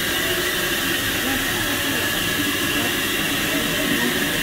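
Steady, loud hiss of steam from a 1927 SACM 040 T tank steam locomotive standing at a halt while its fire is built up after coaling.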